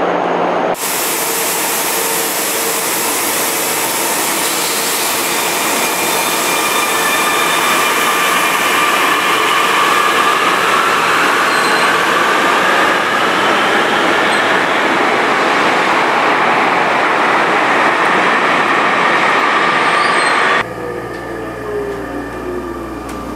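Panama Metro train running: a loud, steady rush of wheel and motor noise with high whining tones gliding up and down. Near the end it cuts to a quieter passage with a lower motor whine that falls in pitch, as from inside a car while the train slows.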